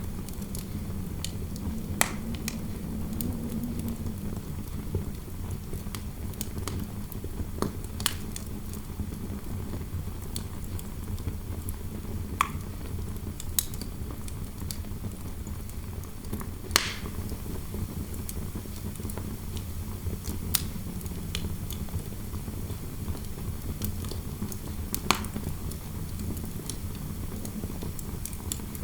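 Wood fire crackling, with sharp pops every few seconds, over a low, steady rumble of wind.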